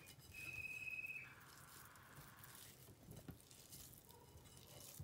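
Faint soft squishing and patting of a hand scooping moist rice-and-minced-meat stuffing from a bowl. Early on, a brief high steady whistle-like tone of unclear source is the loudest sound.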